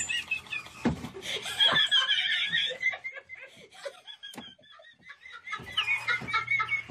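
A person laughing in short high-pitched giggles, trailing off past the middle and picking up again near the end, with a sharp knock about a second in.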